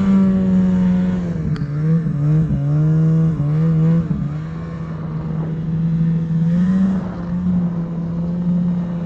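Snowmobile engine running under throttle while plowing through deep powder. Its steady note drops and wavers for a second or two about one and a half seconds in, then holds and lifts slightly near the end, with one sharp click about 1.5 s in.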